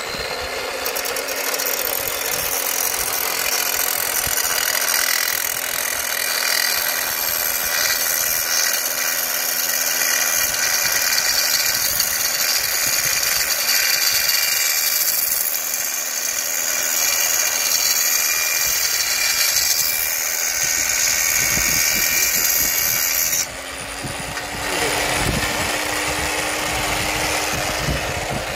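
Electric power tool running steadily under load, its motor holding one pitch. It eases off briefly about three quarters of the way through, then picks up again a little higher.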